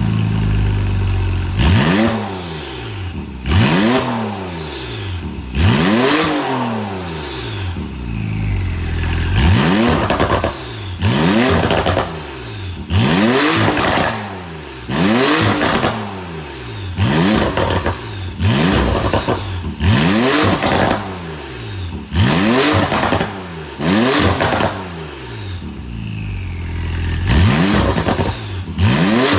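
Porsche 911 Carrera 4 GTS (991.2) twin-turbo flat-six idling through an Armytrix valved sport exhaust with dual tips. The engine is then blipped over and over, roughly one sharp rev every one to two seconds, each climbing quickly and dropping back to idle.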